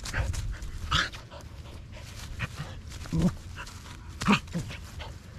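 An Alaskan Malamute puppy and an Australian Shepherd play-fighting, with three short, sharp play barks: about a second in, at about three seconds and just past four seconds.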